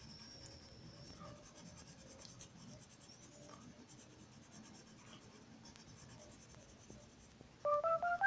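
Coloured pencil scratching lightly on paper as it shades. Near the end, a quick run of four short notes stepping upward comes in much louder, the start of electronic keyboard music.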